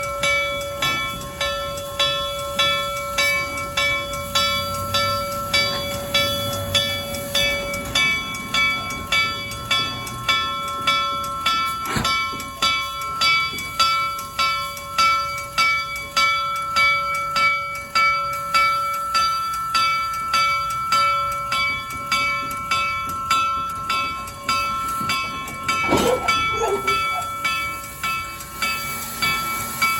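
Reading & Northern 2102 steam locomotive's bell ringing steadily, about one and a half strokes a second, as the engine couples to its train. A single sharp clank comes about twelve seconds in, and a short wavering squeal near the end.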